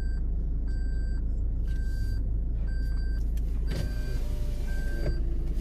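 Off-road vehicle engine idling with a short electronic beep repeating about twice a second. Near the end a small electric motor whirs for about a second and a half.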